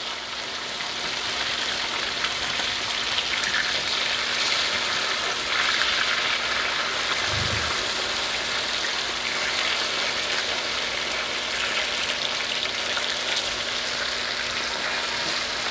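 Oxtail pieces sizzling steadily in hot oil in a cast-iron skillet as they brown. One soft low thump about halfway through.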